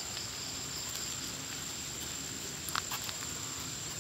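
Insects trilling in one steady high tone, with a couple of short clicks a little under three seconds in.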